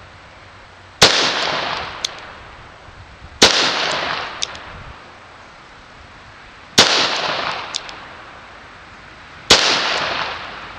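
I.N.A. Tiger .38 Special five-shot revolver firing four shots, spaced two to three and a half seconds apart, each ringing out in a long echoing tail.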